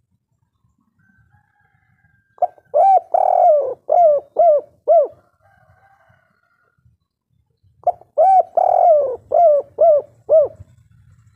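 Spotted dove singing its cooing song twice. Each phrase is a brief note, a long drawn coo, then three short arched 'kuk' notes: the three-note 'kuk 3' ending.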